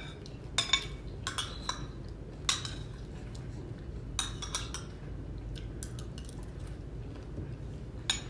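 Cutlery clinking and tapping on a ceramic plate while eating: about ten short sharp clinks, spread unevenly and mostly in the first half, over a steady low background hum.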